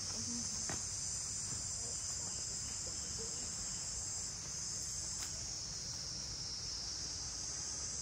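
Insect chorus: a steady, high-pitched buzzing drone that dips briefly a little past halfway, with a couple of faint clicks.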